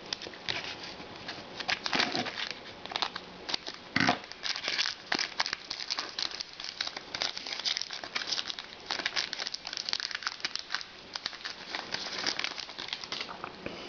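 A trading-card pack wrapper crinkling and tearing as it is opened and handled, a dense, irregular run of crackles with a few louder rustles.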